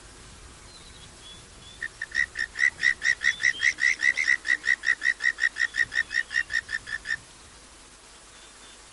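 An animal calling: a rapid, even series of about thirty high whistled notes, about five a second. It starts about two seconds in and stops abruptly about five seconds later.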